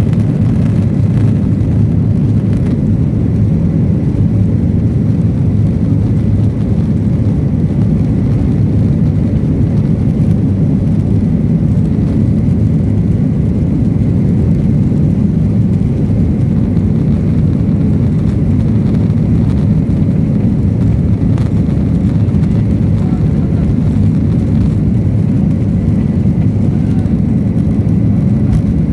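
Airliner engines running with a steady, loud low rumble that does not change in pitch, as during a takeoff run or climb.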